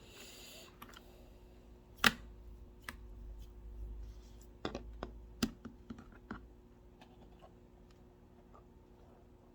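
A few separate clicks and taps, the loudest about two seconds in, in a break from steady typing, with a brief soft hiss at the very start. It is quiet for the last couple of seconds.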